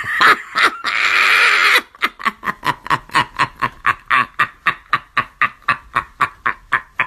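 A woman shrieking and then laughing hysterically: one long, high scream about a second in, followed by rapid, even bursts of cackling laughter, about four or five a second.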